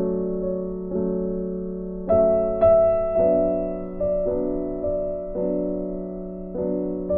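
Soft background piano music, slow chords struck about once a second, each left to fade.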